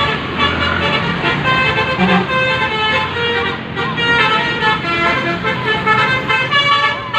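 Basuri 'telolet' multi-tone vehicle air horn playing a quick tune: several horn tones sound together and step up and down in pitch without a break.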